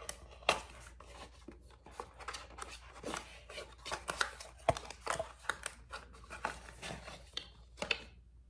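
Packaging being opened by hand in a small room: irregular rustling, crinkling and sharp clicks of wrapping and a box being handled and torn open, stopping shortly before the end.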